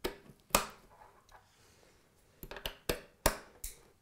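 Metal XLR network-cable plugs being pushed into the firing module's output sockets: a series of sharp clicks and knocks as the connectors seat and latch, the loudest about half a second in and just after three seconds in.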